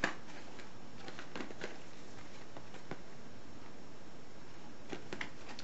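Faint, scattered clicks and taps of small objects being handled, over a steady background hiss.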